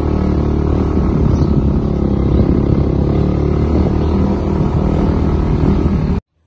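Motorcycle engine running steadily as the bike rides along, cutting off suddenly near the end.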